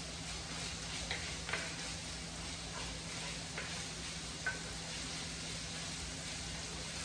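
Chopped bacon and diced onion sizzling steadily as they fry in a cast-iron skillet, stirred with a spatula, which gives several short scrapes and clicks against the pan in the first half.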